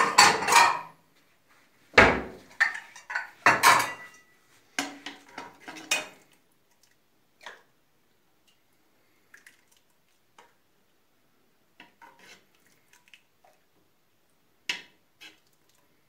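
A metal ladle clinking and scraping against a metal cooking pot and serving bowls as hot rice pudding is ladled out. There are several loud knocks and clatters in the first six seconds, then only scattered faint clinks, with one sharper clink near the end.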